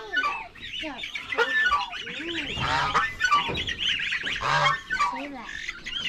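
Domestic goose honking now and then among rapid high peeping calls, the distress peeps of a lost gosling.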